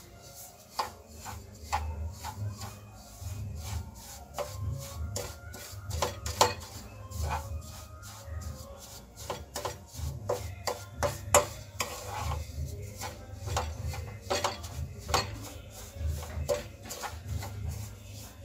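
Wooden spatula stirring and scraping dry, crumbly semolina around a nonstick frying pan while it roasts in ghee, in irregular scrapes and light taps. A low rumble runs underneath.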